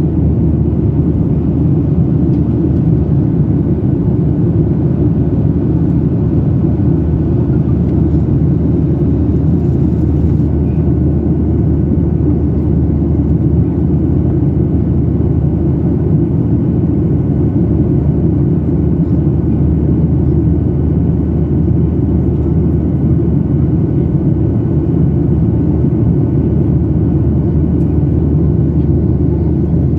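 Steady cabin noise inside a Boeing 737-800 in flight: its CFM56-7B turbofan engines and the airflow over the fuselage make a deep, even rumble, with a faint high steady whine above it.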